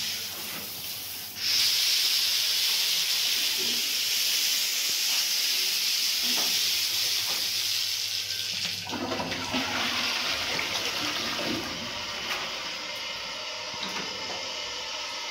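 High, steady hiss of water spraying from a hand shower, then about nine seconds in a toilet cistern is flushed by its push button and water rushes into the bowl, a fuller and lower-reaching rush that keeps going.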